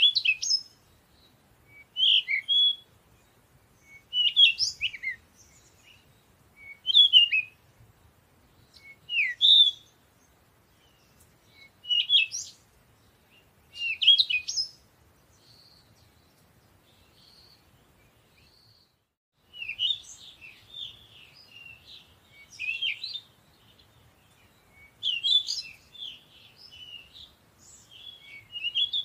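Birds chirping: short twittering phrases about every two seconds, a few faint notes in a lull about halfway, then more continuous twittering for the rest.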